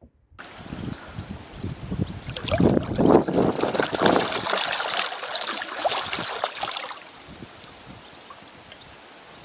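Kayak paddle strokes splashing and dripping water, a dense run of small splashes that swells and then drops about seven seconds in to a softer, steady trickling of water.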